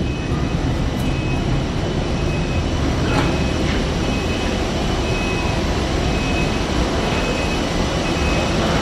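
Steady roar of airliners and airport ground equipment heard from inside a jet bridge while boarding, with a faint high beep repeating at short intervals and a few light knocks.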